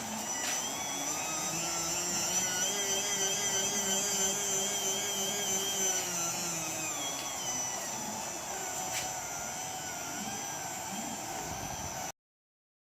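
Small electric motor of a rotary welding turntable speeding up, running steadily, then slowing down, with a steady high whine alongside; the sound cuts off suddenly near the end.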